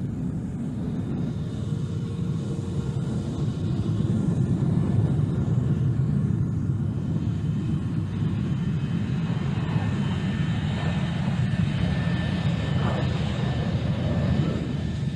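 Lockheed Blackbird's Pratt & Whitney J58 jet engines at takeoff power as the aircraft rolls and lifts off: a heavy steady rumble that grows louder about four seconds in, with a thin high whine joining it about halfway through.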